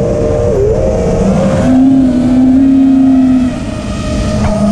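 Vortex 230 racing quadcopter's brushless motors and propellers whining in flight, heard from the onboard camera with wind rush. The pitch of the whine shifts with throttle and drops away briefly about three and a half seconds in before coming back up.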